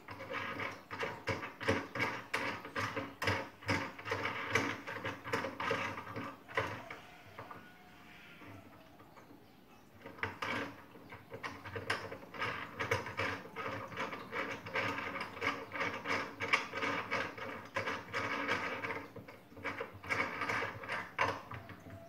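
Desk clamp of a North Bayou NB F80 monitor arm being adjusted and tightened by hand, with rapid clicking and rattling of its metal parts. The clicking stops for a couple of seconds about seven seconds in, then starts again.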